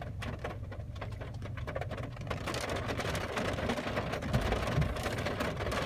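Heavy rain on a car's roof and windshield, heard from inside the car: a steady hiss of many small drop taps, growing slowly louder.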